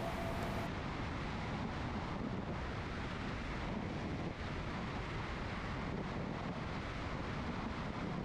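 Steady rush of airflow over an outside-mounted camera in flight, with the drone of the 1946 Ercoupe 415-C's engine and propeller underneath.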